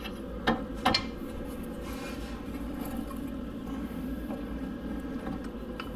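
Light metallic clicks and scraping from brake caliper and hub parts being handled by hand, with two sharper clicks within the first second, over a steady low hum.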